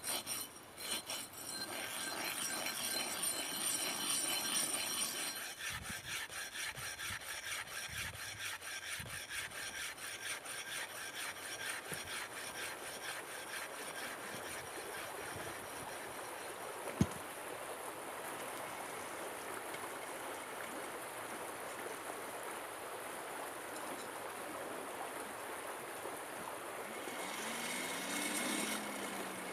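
A forged steel nail header rubbed back and forth on a flat stone, its face being ground flat in quick, even scraping strokes for the first several seconds. After that a stream runs steadily, with one sharp knock about halfway through.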